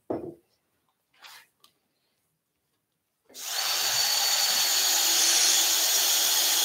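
Cordless drill-driver driving a screw into the wooden chair frame: after a short knock at the start, the motor starts about three seconds in and runs steadily at an even pitch, with the drill's clutch set so it stops the screw cleanly.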